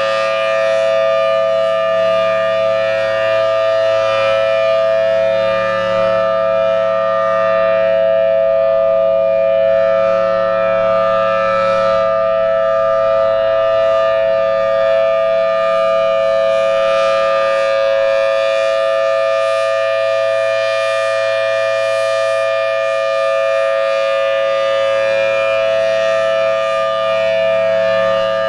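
Federal Signal Thunderbolt 1000T outdoor warning siren sounding its full alert signal: a loud, steady two-tone chord that holds its pitch without rising or falling. The siren is in healthy working order.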